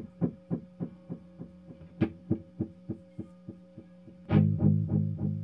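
Electric guitar notes played through a Black Fountain oil-can-style delay pedal, each pluck repeating in fading echoes about three times a second over a steady hum. About four seconds in, a louder, lower chord comes in and rings on.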